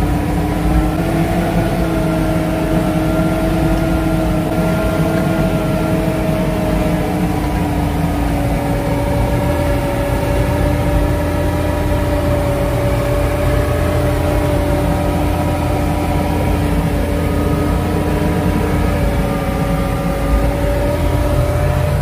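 Farm tractor's diesel engine running steadily in the field, with a steady tone that drifts slightly in pitch.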